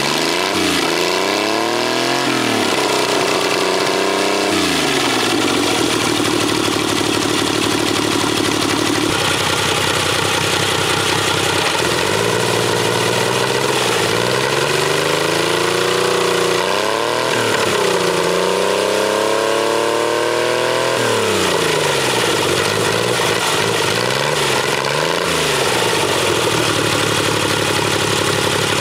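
Homemade three-cylinder engine, built from three 5 hp Briggs & Stratton flathead engines chained together and firing evenly, running and being revved up and down several times by hand. Near the end it settles to a steady idle.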